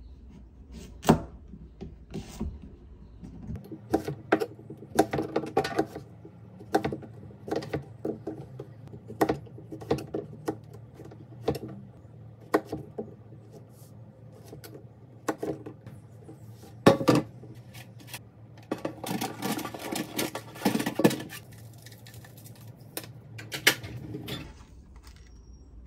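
Chef's knife slicing a zucchini on a plastic cutting board: separate, irregular knocks of the blade meeting the board. A denser run of knocks and clatter comes a few seconds before the end.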